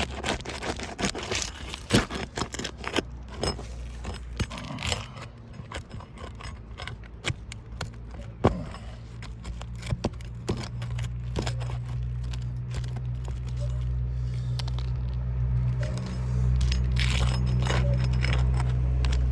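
Asphalt shingle repair work on a roof: scattered clicks, taps and scrapes from shingles and tools being handled, as shingles are lifted to check them. A steady low rumble builds in the second half and is loudest near the end.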